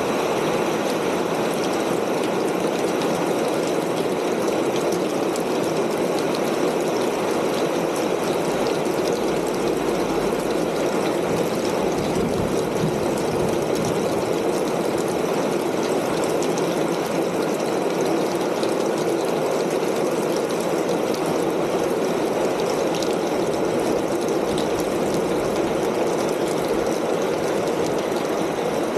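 Steady rain falling on a corrugated tin roof, an even, unbroken patter.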